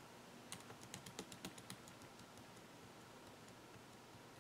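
Faint quick burst of computer keyboard typing: about a dozen light, irregular key clicks starting about half a second in and lasting a little over a second.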